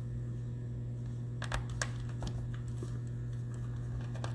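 A few light clicks and taps from a small Phillips screwdriver working the battery screws inside an opened laptop, over a steady low hum.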